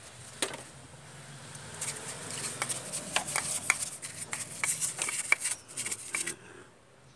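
Stiff brush scrubbing oily, diesel-wet grime off an engine's pulleys and timing gears: a quick run of scratchy strokes and small clicks that stops about six seconds in.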